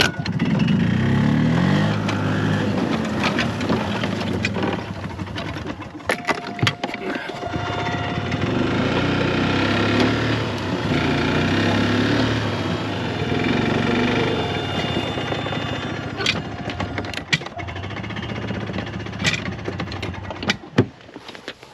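Petrol golf cart's small engine running, rising in pitch over the first couple of seconds and then speeding up and slowing as it works. Sharp knocks and clicks come through about six seconds in and again near the end, when the engine eases off.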